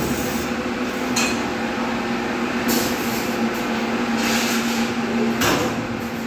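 A steady machine hum, with several short bursts of hiss over it.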